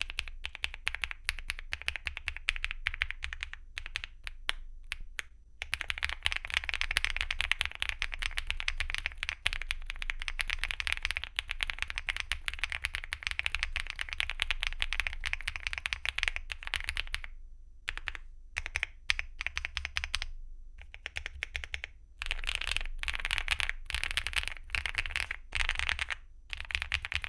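Typing on a Weikav Lucky65 mechanical keyboard with hand-lubed Duhuk Bitter Tea V2 tactile switches and Cherry-profile PBT keycaps: fast, continuous runs of keystrokes, broken by short pauses and a slower stretch of separate presses a little past the middle.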